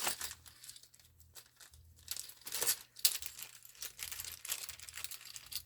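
Plastic packaging of a phone repair kit crinkling and rustling as it is handled and opened, in a run of short irregular crackles.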